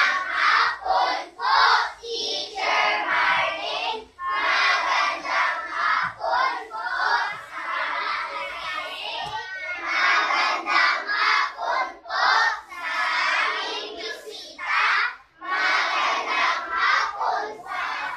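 A class of schoolchildren chanting together in unison, in long phrases broken by short pauses: the class's spoken greeting in reply to the teacher's 'good afternoon'.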